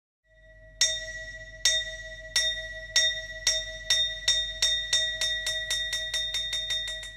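A small ritual bell struck again and again in an accelerating roll: the strokes start nearly a second apart and speed up to several a second, each one ringing on, over a faint steady tone. This is the kind of bell roll that opens a chầu văn piece.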